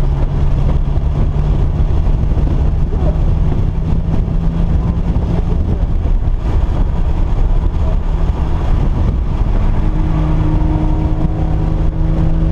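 A motor vehicle's engine running under a heavy low rumble. Its steady engine note fades for several seconds and comes back strongly near the end.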